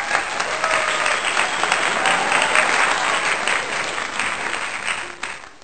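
Applause from a crowd, many hands clapping densely, fading out near the end.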